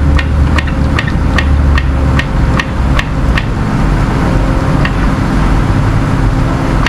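A vehicle engine runs with a steady low rumble under a quick series of sharp metallic clicks, about two or three a second. The clicks thin out to single ones after about three and a half seconds.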